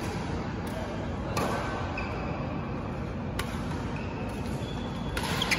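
Badminton rally: sharp racket strikes on the shuttlecock every one to two seconds, two in quick succession near the end, with brief high squeaks of shoes on the court floor over a steady background hum.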